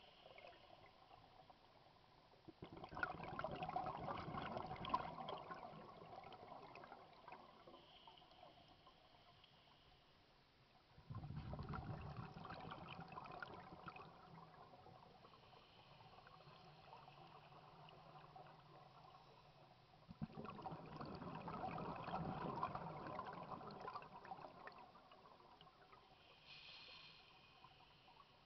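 A scuba diver breathing through a regulator underwater: three long bubbling bursts of exhaled air, about nine seconds apart, each starting sharply and fading. A faint hiss comes between them.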